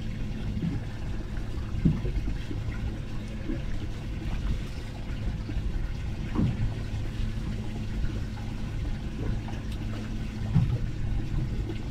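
Water sloshing and trickling over a steady low mechanical hum, with a few light knocks.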